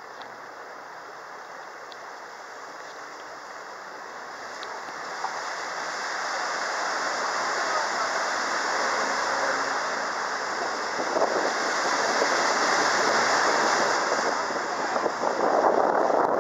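A small river cruise boat under way: water rushing along the hull and wind on the microphone, making a steady rushing noise. It grows louder from about five seconds in, with wind buffeting the microphone near the end.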